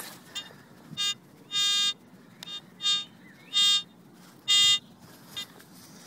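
Detector Pro pistol probe (handheld metal-detecting pinpointer) giving a series of short buzzing beeps, about one a second, as it is passed over a dug-up soil plug. The beeps signal a metal target in the plug.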